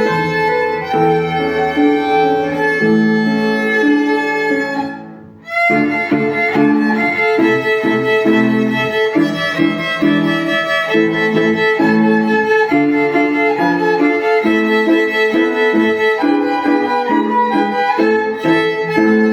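Solo instrumental folk-song arrangement: a melody of sustained notes over held lower notes. It breaks off briefly about five seconds in, then carries on.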